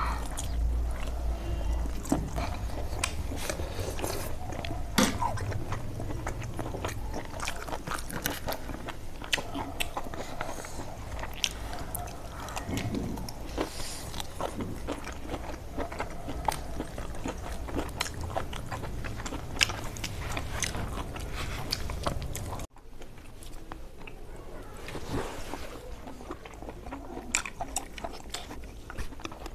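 A person chewing and biting pork sausage close to the microphone, with many sharp crunches and clicks. A low background hum stops abruptly about 23 seconds in.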